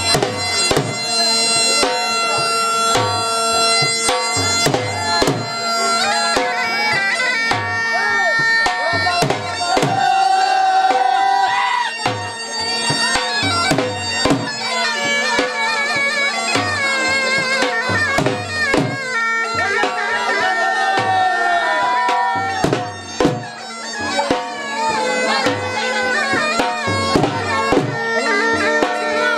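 Bagpipes playing a jhumar folk melody over a steady drone, with a dhol beating a rhythm of strokes along with it.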